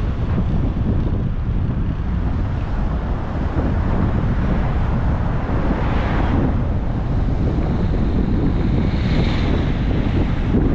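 Wind buffeting the microphone: a loud, steady low rumble with a brief rise in hiss about six seconds in.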